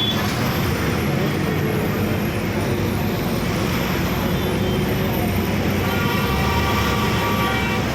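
Road traffic with a steady wash of engine and tyre noise; a vehicle horn sounds about six seconds in and holds for around two seconds.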